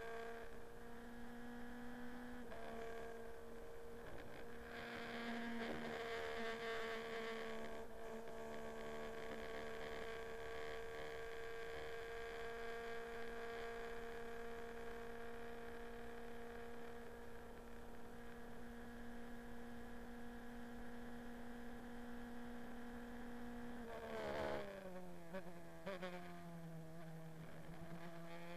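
Formula Renault 2.0 single-seater's two-litre four-cylinder engine, heard onboard at high revs under full throttle as a steady tone, with one gear change a couple of seconds in. About 24 seconds in the pitch drops in several quick steps as it downshifts for a corner, then climbs again as it accelerates.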